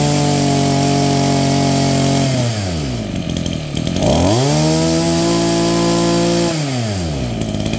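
Small Maruyama engine on a pole hedge trimmer running just after a pull start. It is revved to high speed and held for about two seconds, dropped back toward idle, then revved up and held again about four seconds in before falling back.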